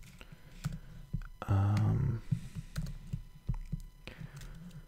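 Typing on a computer keyboard: scattered key clicks, with a short voiced hum about a second and a half in.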